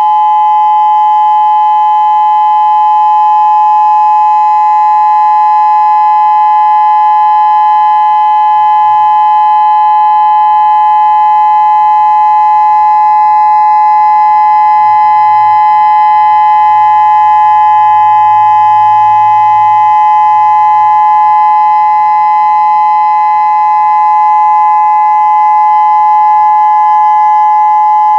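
Federal Signal Modulator 6032 electronic outdoor warning siren sounding its steady Alert tone: two close, unwavering pitches held without rising or falling, as a test of the outdoor warning system.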